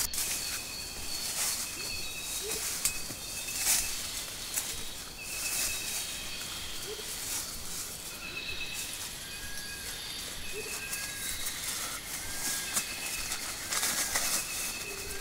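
Dry leaf litter crunching and rustling as a person shifts and moves about on the forest floor, with birds calling in the background. From about nine seconds in, a short chirp repeats roughly once a second.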